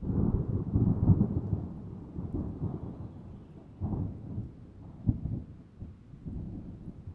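Thunder rumbling over rain. It comes in suddenly out of silence, is loudest in the first second and a half, then rolls on lower, with sharper cracks about four and five seconds in.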